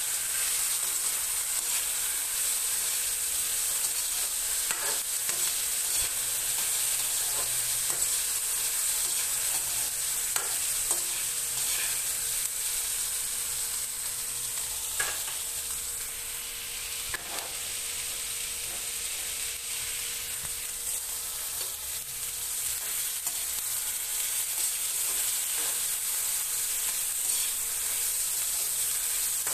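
Sliced onion and tomato sautéing in hot oil in a metal wok, sizzling steadily. A small metal ladle stirs them, with a few short clicks and scrapes against the pan.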